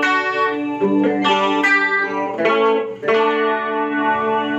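Electric guitar played through the Joyo Vision pedal's small (SM) chorus setting: strummed notes and chords ringing out, with fresh attacks about a second in, around a second and a half, and about three seconds in.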